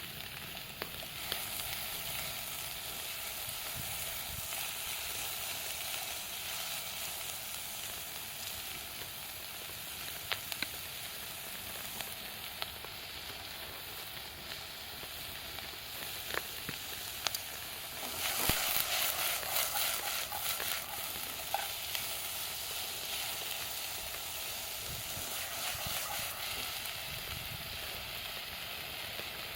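Wood fire crackling: a steady hiss with scattered sharp pops, growing into a denser, louder stretch of crackling about two-thirds of the way through.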